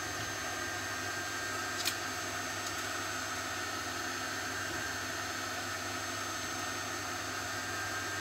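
Steady background hiss with a faint constant hum, like a running fan or recording noise, and one soft click about two seconds in.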